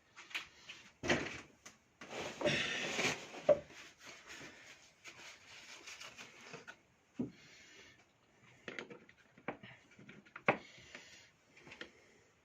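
Rubbing and scraping as grime is cleaned off a part of an electric chainsaw, loudest for about a second and a half about two seconds in, followed by a few sharp knocks and clicks of parts being handled and set down.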